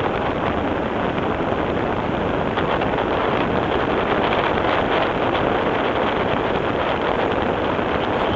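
Steady wind rushing over the camera microphone as the tandem paraglider flies through the air.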